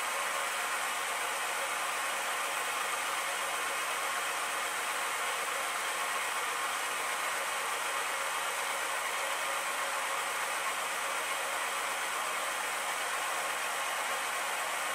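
Bridgeport milling machine running steadily, its motor and spindle turning at constant speed.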